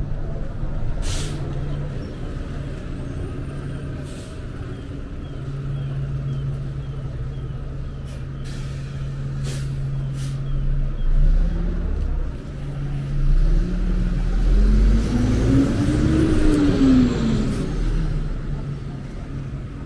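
Heavy city bus running in traffic, its low engine tone steady at first, then climbing in steps as it pulls away and rising to a peak before falling off as it passes, loudest about three-quarters of the way through. A few short sharp hisses come early on.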